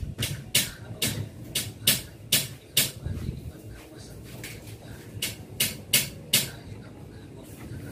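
Sharp knocks on an aluminium sliding-window frame as a glass pane is fitted into it, about two a second for the first three seconds, then four more a little after five seconds.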